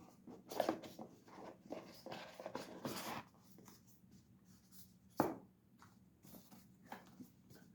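Faint handling noises as a knife and its box are handled: scraping and rustling with a few small knocks, then one sharp click about five seconds in.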